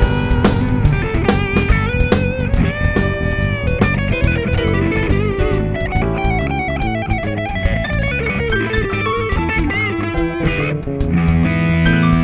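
A band playing: an electric guitar carries a lead melody with bent notes over bass guitar and a drum kit keeping a steady beat.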